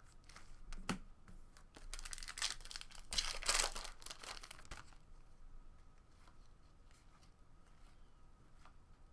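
A pack of 2017 Topps Series 1 baseball cards being torn open, the wrapper tearing and crinkling in a burst from about two to nearly five seconds in, with faint light ticks before and after.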